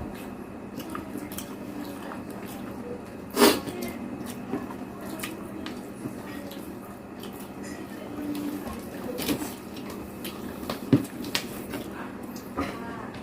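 Close-up eating sounds: wet chewing and mouth smacks with scattered small clicks, and one sharper click about three and a half seconds in. A steady low hum runs underneath.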